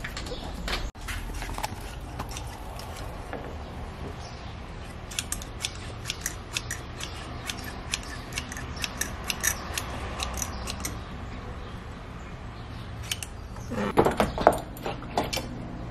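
A caulking gun's trigger clicking again and again as construction adhesive is squeezed out. Near the end, louder metallic knocks and clanks as a metal flat bar is clamped down on wood.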